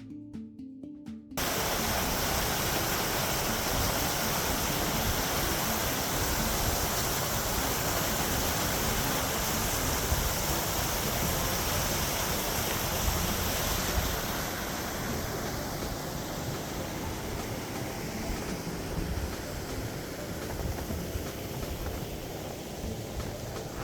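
Music ends abruptly about a second in, giving way to a steady rush of fast-flowing water, which eases slightly partway through.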